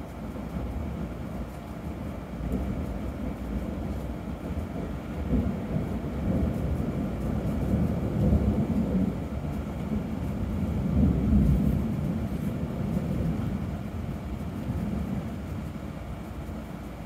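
Rolling thunder: a long low rumble that swells and fades in waves, loudest about eight and again about eleven seconds in.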